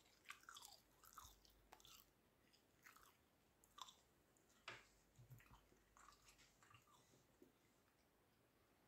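Near silence, broken by faint scattered clicks and crunches of quiet chewing.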